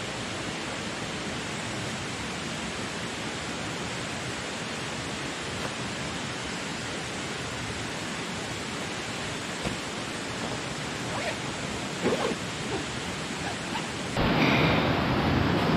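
River water rushing: a steady hiss. A few soft knocks come about ten to twelve seconds in, and the rushing turns suddenly louder near the end.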